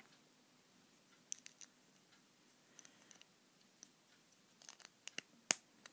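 Small scattered clicks and scrapes of Beyblade parts being handled and fitted together by hand, with one sharper click near the end.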